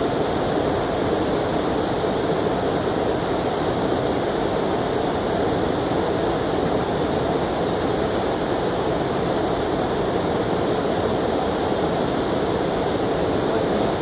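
Steady rushing of a shallow creek flowing over a rocky riffle.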